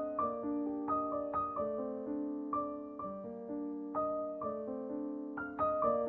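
Background music: a slow, gentle piano melody, single notes struck roughly two a second and each left to ring out and fade.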